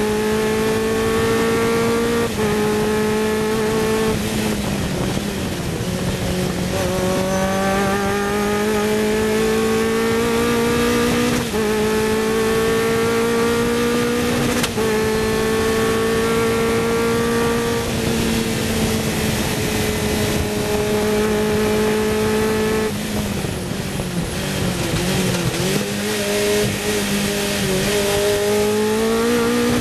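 Onboard sound of a Sports 2000 race car's engine at full throttle, climbing in pitch through the gears with brief breaks at each upshift. Past the twenty-second mark it falls off and wavers as the car brakes and downshifts for a corner, then climbs again near the end as the car accelerates out.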